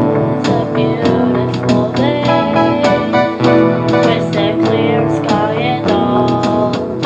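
Music: a song with keyboard and guitar accompaniment.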